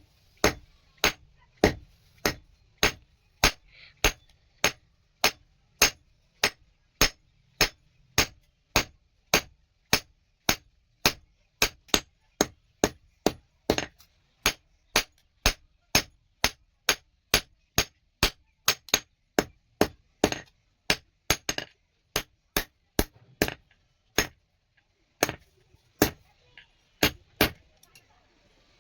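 Hand hammer striking steel on an anvil in a steady rhythm, about two ringing blows a second, with a short pause about three-quarters of the way through: a small steel rod being forged into a knife.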